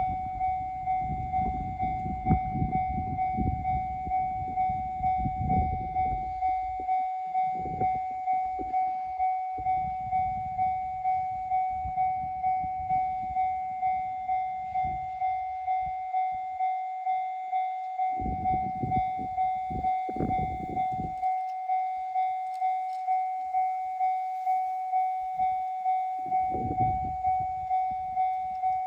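Japanese railway level-crossing bell ringing steadily at about two strokes a second. A train rumbles past through the first seven seconds or so, with shorter rumbles of passing traffic later.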